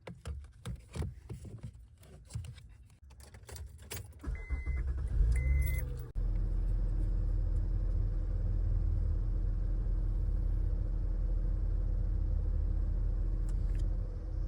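Keys jangling and clicking, then two short chime beeps. The Honda Ridgeline's V6 cranks and starts about six seconds in, then settles into a steady idle.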